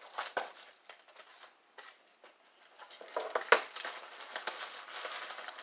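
Cardboard shipping box being opened by hand: scattered taps and scrapes on the cardboard, then rustling and crinkling of the packing wrap in the second half, with one sharp knock about three and a half seconds in.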